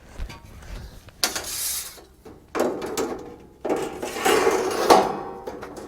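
Metal grease tray being slid into its lip under a portable propane grill: three spells of metal scraping and rattling, the last and longest with a light metallic ring.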